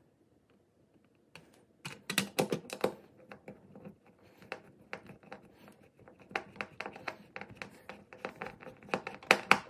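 Hand screwdriver driving a mounting screw through a plastic thermostat wall plate into drywall. After a quiet start it sets in about two seconds in as a rapid, uneven run of clicks and scrapes as the screw is turned.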